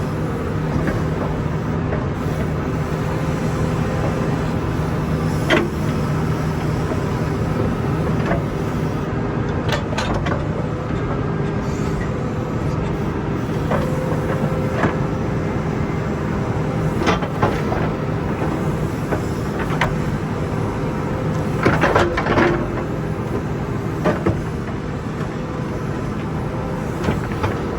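John Deere 310 backhoe loader's engine running steadily while it digs, with occasional sharp knocks and clanks.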